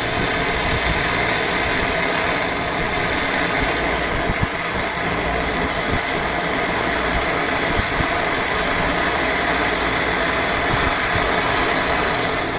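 Refrigerator compressor running steadily during refrigerant gas charging: a continuous machine hum with a hiss.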